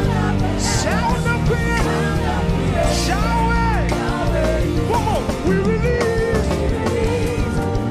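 Live worship music: a band with bass, guitar and cymbals plays while voices sing wavering, drawn-out lines over it.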